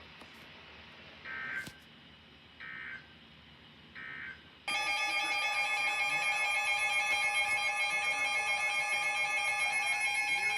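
Emergency Alert System broadcast: three short electronic data bursts of the alert header about a second and a half apart, then a little under halfway through the loud, steady two-tone EAS attention signal begins.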